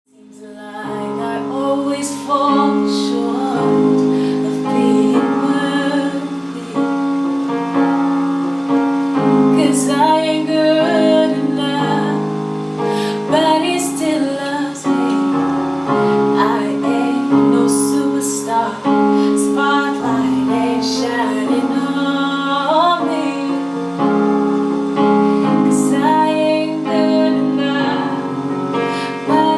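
Music: a woman singing a slow melody over sustained keyboard chords.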